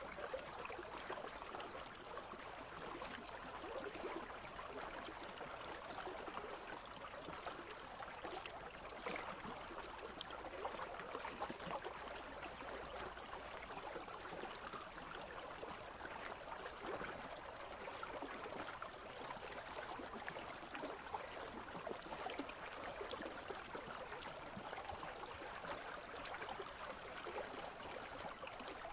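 Country stream flowing, a steady, unbroken rush of water.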